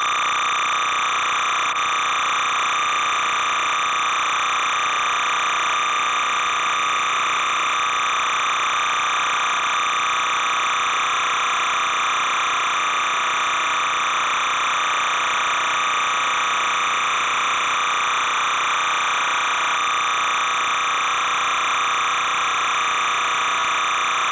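A steady, unchanging buzzing hiss from the recording itself, the same level throughout, with no game or crowd sound heard.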